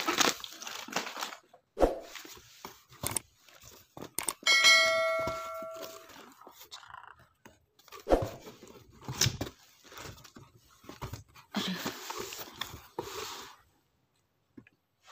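Packaging being handled and torn open: irregular rustling, crinkling and small knocks. About four and a half seconds in, a single pitched ringing tone sounds for about a second and a half.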